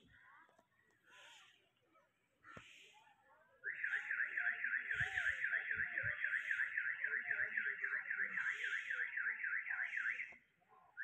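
Car alarm sounding a rapid electronic warble, a rising whoop repeated about five times a second. It starts about three and a half seconds in and cuts off suddenly near the end.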